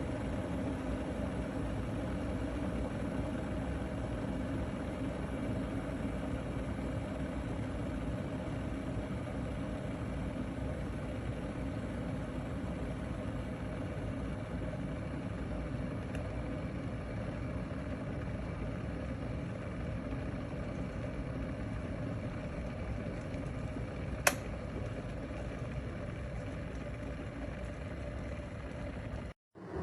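Mueller Ultra M99S 1500W glass electric kettle heating water, a steady rumbling hiss as it works toward the boil. A single sharp click comes about three-quarters of the way through, and the sound cuts out briefly just before the end.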